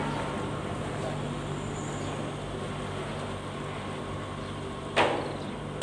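Heavy diesel machinery running steadily at idle, a low, even hum. A brief burst of noise about five seconds in.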